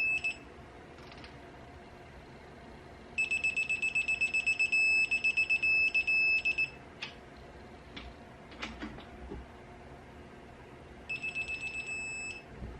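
Digital torque wrench beeping as a stud nut is tightened. Rapid beeps that close into a steadier tone signal that the set torque is near and then reached. This happens twice, the second bout shorter, with a few light clicks between.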